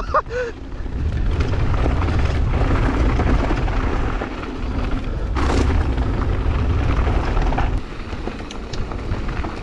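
Mountain bike rolling fast down a dirt trail: wind buffeting the action-camera microphone as a steady low rumble, over tyre noise and the bike's rattling and clicks, with a harder jolt about five and a half seconds in.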